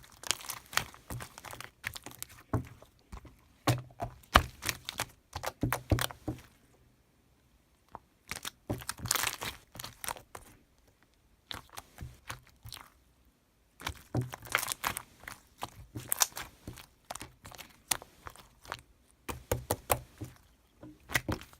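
Irregular crinkling and crunching: clusters of sharp crackles and clicks, broken by two quiet gaps of a second or two.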